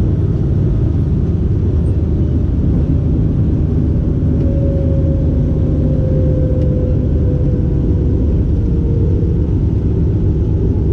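Steen Skybolt biplane's piston engine and propeller running as a loud, steady low rumble, heard from the open cockpit. From about four seconds in, a note in the engine sound falls slowly in pitch as the engine slows.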